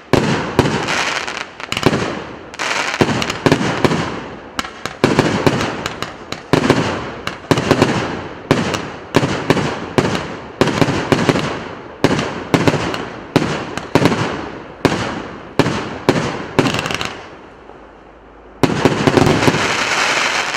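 A 1.25-inch, 100-shot consumer fireworks cake firing shot after shot, roughly one a second, each a sharp bang that fades away. Near the end it goes quiet for about a second, then a loud dense flurry of shots runs for about two seconds.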